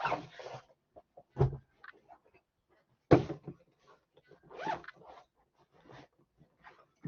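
Hand tools being handled and set down among other tools and a tool bag: scattered light clicks and clinks, short rustles, and a dull thump about a second and a half in.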